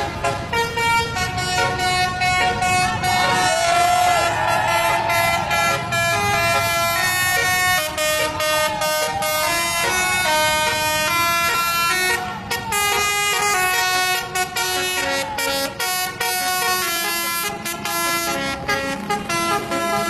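Bus telolet horn, a multi-tone air horn, playing a tune of stepped notes as the coach passes, with children cheering over it.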